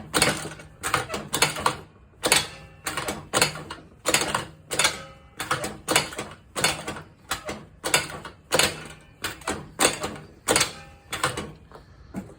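Icebear 50cc scooter's kick-starter kicked over and over, a sharp mechanical clatter about twice a second. The engine does not catch.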